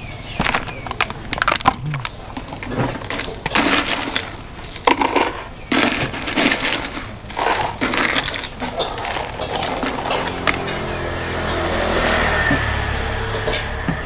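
Ice cubes clattering and crunching as they are scooped out of an insulated cooler box into a plastic cup: a long run of sharp, irregular strokes. For the last few seconds a steady low rumble takes over.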